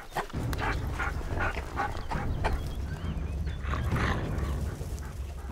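A pack of Iberian wolves squabbling: a rapid run of short yelps and whines, some bending in pitch, over a steady low rumble.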